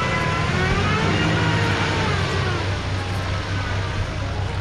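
Off-road 4x4 vehicle's engine running steadily with a low hum.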